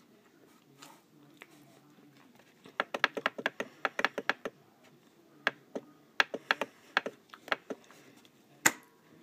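A fast run of sharp clicks, about eight a second, starting about three seconds in, then scattered single clicks and one louder click near the end.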